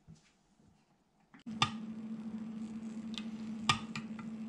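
A metal spoon clinking a few times against a glass baking dish while basting a roasting rabbit in its juices, over a steady low hum that starts about a second and a half in.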